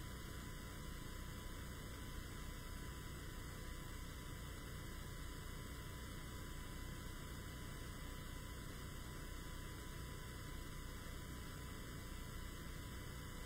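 Steady electrical mains hum and hiss in the sound system, with a thin, unchanging high tone; nothing else sounds.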